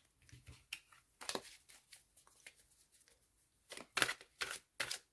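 Tarot cards being dealt out onto a table: soft flicks and slaps of card on card, a few faint ones at first, then a quicker run of sharper snaps near the end.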